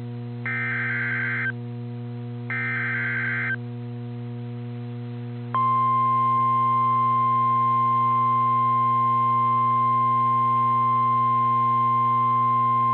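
NOAA Weather Radio Emergency Alert System signalling: two one-second buzzy bursts of SAME digital header data, about a second apart, then after a short pause the steady 1050 Hz weather radio warning alarm tone starts about five and a half seconds in and holds. A constant low hum runs underneath.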